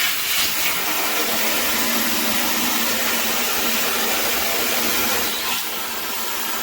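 Handheld metal shower head spraying water at full flow with its flow restrictor taken out, a steady loud rushing hiss that eases slightly a little past five seconds in.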